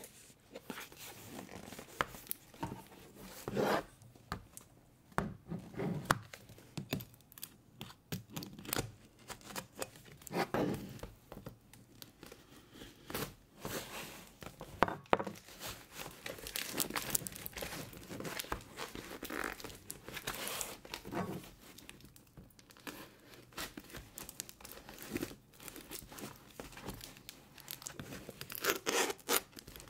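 Knife blade slicing through packing tape on a cardboard box, with tape tearing and crinkling and the box scraping as it is handled; irregular scrapes and rustles, loudest near the middle and near the end.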